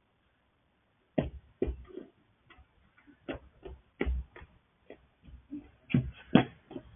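A string of irregular clicks and knocks, starting about a second in after a short silence, and coming closer together near the end.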